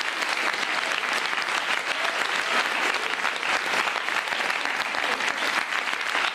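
Studio audience applauding steadily, a dense patter of many hands clapping at once.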